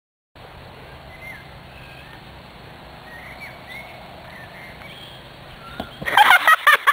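Outdoor background with birds chirping faintly. About six seconds in, loud laughter breaks out in rapid rhythmic pulses.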